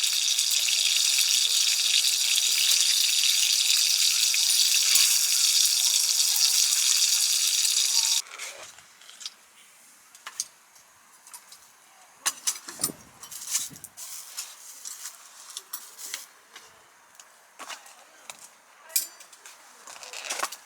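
Food sizzling loudly in a hot pan, an even hiss that cuts off suddenly about eight seconds in. After that only scattered light clicks and knocks are heard.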